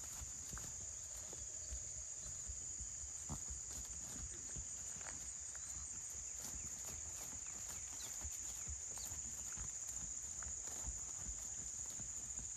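Steady high-pitched insect chorus in the trees, with faint scattered thuds of a horse's hooves on grass.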